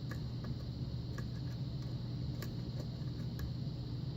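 Faint, irregular metallic ticks of a lock pick working the pin tumblers of an old six-pin Russwin lock, held under tension in a false set, over a steady low hum.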